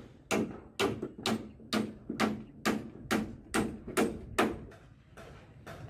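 Hammer blows on timber formwork, about two a second, ten or so strikes that stop about four and a half seconds in.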